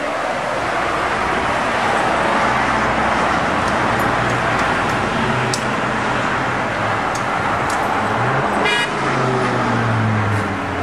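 Road traffic on the street below: a steady rush of passing vehicles with engine hum, one vehicle pulling away more loudly near the end. A short car horn toot sounds about nine seconds in.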